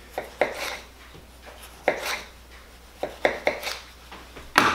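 Chef's knife slicing a Roma tomato thinly on a wooden cutting board: a handful of irregularly spaced knocks as the blade comes through onto the board, the loudest one near the end.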